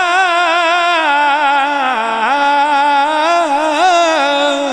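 A male naat reciter singing one long, ornamented held note without words, the melody wavering and then stepping down to a lower note about two seconds in.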